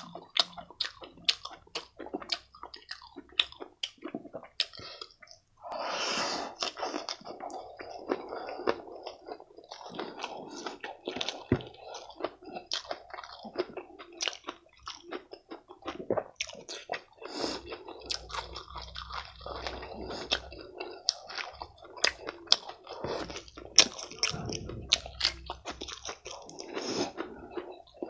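A person chewing and biting food close to the microphone, with wet mouth sounds and many sharp clicks and crackles, louder for a moment about six seconds in.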